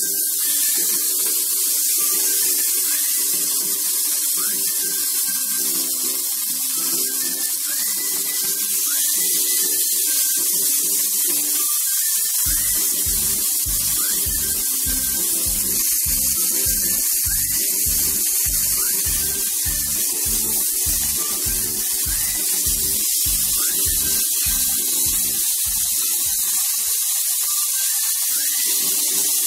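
Marinated chicken steaks sizzling in hot oil in a nonstick pan: a steady hiss that starts as the meat goes in. Background music plays under it, its beat coming in about twelve seconds in and dropping out near the end.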